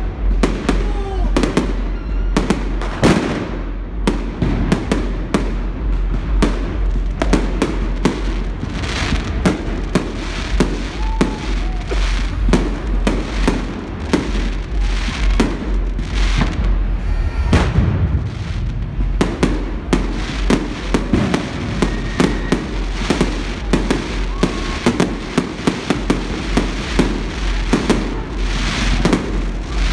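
Fireworks going off in rapid, unbroken succession: a dense mix of sharp bangs and crackling bursts, some louder than others.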